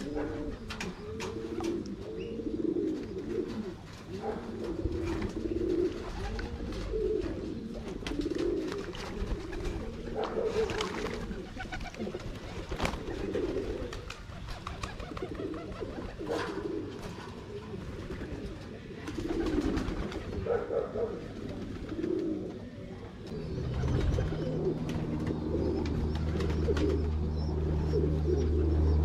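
Domestic pigeons cooing continuously in repeated rising-and-falling coos, with scattered wing flaps. About three-quarters of the way through, a steady low hum of unknown source starts underneath and grows louder.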